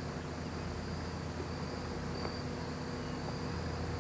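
Insects trilling in a field: a thin high tone that comes and goes in short stretches, over a steady hiss and low hum.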